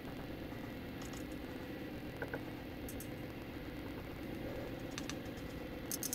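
A steady low hum runs under a few faint, scattered clicks and taps as batter is scooped from a ceramic bowl with a silicone spatula into a paper baking cup.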